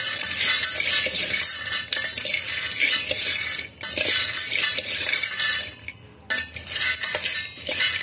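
A spoon stirring peanuts being dry-roasted in a stainless-steel electric kettle: continuous scraping and rattling of nuts against the metal wall, with a short pause about 4 s in and another near 6 s.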